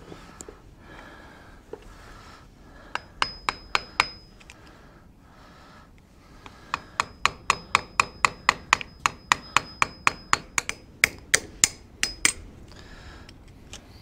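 Hammer tapping on steel at a backhoe's front wheel hub, working the cotter pin out of the spindle nut: a few taps about three seconds in, then after a pause a long run of quick taps, about four a second, with a thin metallic ring hanging between them.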